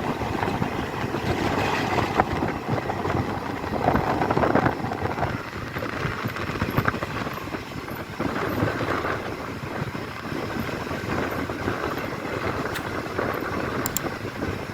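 Passenger train running along the track: a steady rumble and rattle of the coach with scattered small knocks.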